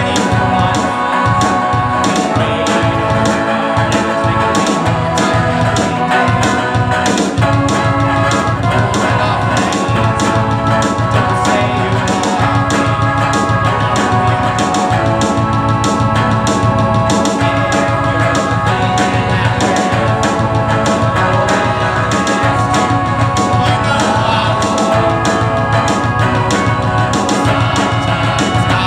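Live band music: electric guitar with held chords over a steady beat, and a man singing at times.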